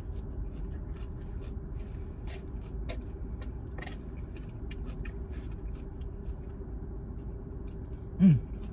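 Steady low hum inside a car cabin, with scattered faint clicks and taps of a plastic fork and of chewing while eating. Near the end comes a short, loud 'mm' that falls in pitch.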